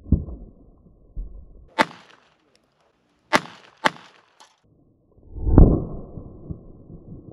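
Three sharp cracks of a Beretta 21A .22 LR pistol being fired, the last two about half a second apart. A loud low rumble swells up about two-thirds of the way through.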